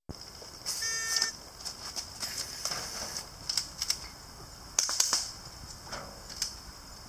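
Airsoft gas-blowback pistol firing a string of sharp clacks, about a dozen shots spread unevenly over several seconds, after a brief beep about a second in. A steady high hiss sits underneath.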